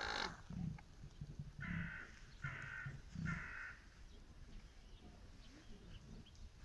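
A bird cawing: three harsh calls in a row, a little under a second apart, starting about two seconds in.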